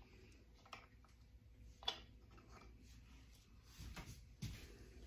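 Near silence with a few faint clicks of a small plastic sample tube being handled and lifted out of a stopped mini centrifuge, with one sharper click about two seconds in.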